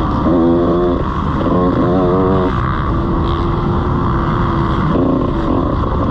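125cc two-stroke motocross bike engine revving hard under throttle, its pitch climbing and dropping in surges about half a second, two seconds and five seconds in, over a constant rush of wind and engine noise from a helmet-mounted camera.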